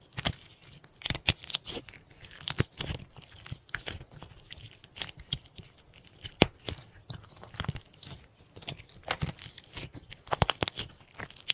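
Slime being pressed and played with by hand, making irregular sharp crackles and pops.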